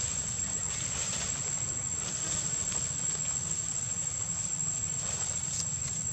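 Insects droning in one high, unbroken tone over a low steady rumble.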